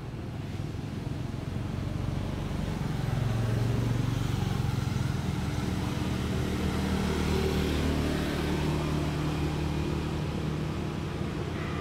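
A motor vehicle's engine running nearby, a steady low hum that grows louder over the first few seconds and then holds.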